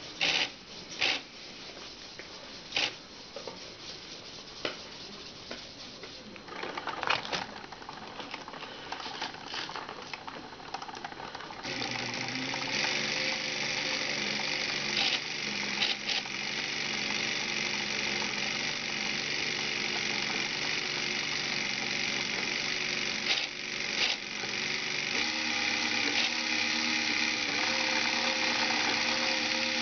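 LEGO kite-painting machine running: its small electric motor and plastic gears set up a steady whirring hum with gear chatter about twelve seconds in, after scattered clicks and knocks. The hum shifts slightly in pitch about 25 seconds in.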